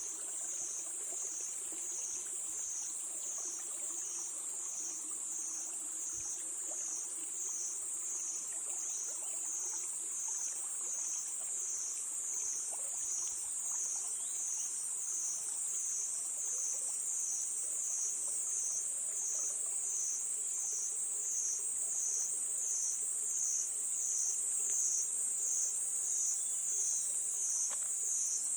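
Crickets chirping in a continuous shrill chorus that swells and fades about once a second, slowly getting louder.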